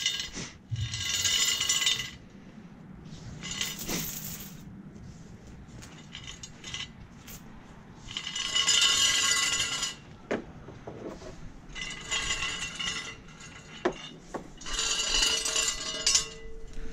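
Galvanized anchor chain and metal fluke anchor clinking and rattling as they are handled, in four bursts of a second or two, with a few sharp knocks between.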